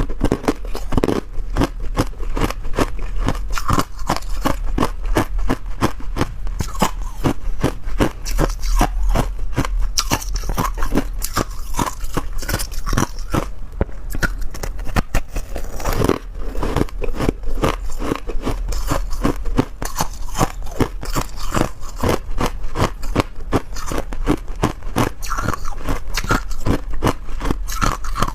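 Ice being bitten and chewed, a dense run of rapid crunches and cracks that never stops.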